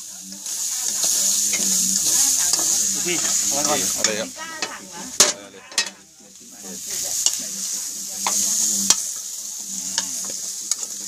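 Pork pieces sizzling as they fry in a metal pan, with a metal spatula scraping and clinking against the pan. The sizzle drops away briefly a little past halfway, then comes back.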